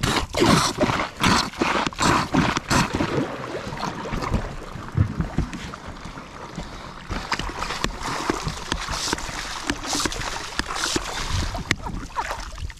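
Hand-operated kayak bilge pump being worked in quick strokes, about two or three a second, each stroke drawing up water and squirting it out. The strokes are sharpest in the first few seconds, then blur into running splashing water.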